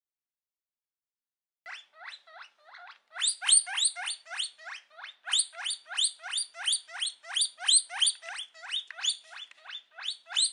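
Guinea pig squeaking: a rapid run of short, rising squeaks, about three a second, beginning about a second and a half in.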